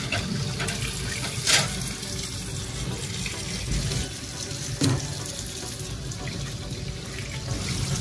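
Kitchen tap running steadily into a stainless steel sink while a plucked pigeon is rinsed by hand under the stream. Two brief knocks come through, about a second and a half in and again near five seconds.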